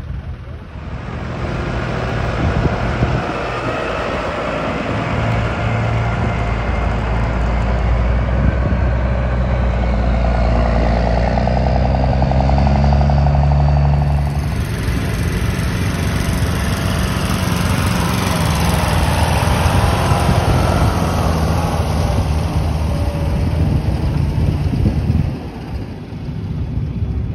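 Armoured tracked vehicle engines running, a loud deep steady rumble. In the second half a light tracked armoured vehicle drives past. The sound changes abruptly about halfway through and drops near the end.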